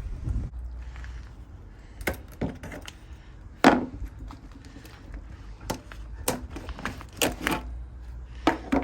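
A series of sharp, irregular knocks and clatters, about ten in all, the loudest a little under four seconds in, over a low steady rumble.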